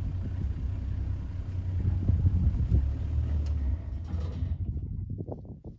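Game-drive vehicle's engine running with a steady low drone, which fades away over the last second or two.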